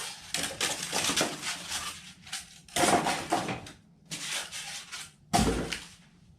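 Rustling, crinkling handling noise of packaging and parts being unpacked, in irregular bursts, with a heavier thud about five and a half seconds in.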